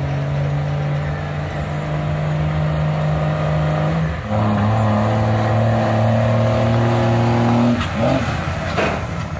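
Diesel engine of a pulling truck or tractor running at full throttle under heavy load, holding a steady high pitch. About four seconds in the pitch drops and holds lower and louder. Near the end the engine lets off and the steady tone breaks up.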